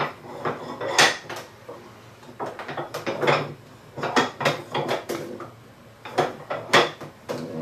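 Irregular wooden clacks and knocks from working an inset tail vise: the wooden handle is turned to close the jaws, clamping a board against a bridge piece set between oak bench dogs.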